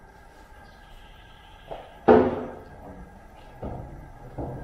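Steel bonnet of a Holden VH Commodore lowered and shut with one loud bang about two seconds in, followed by a few lighter knocks.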